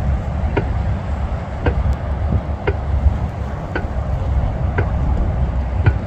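Race-start countdown timer ticking about once a second, each tick a short electronic beep, over a steady low rumble.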